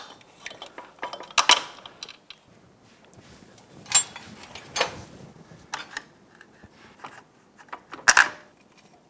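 Scattered metallic clinks, taps and knocks as a greased bolt and a motorcycle's rear shock are worked into the frame and suspension linkage by hand. The sharpest knocks come about a second and a half in, around four and five seconds, and near the end.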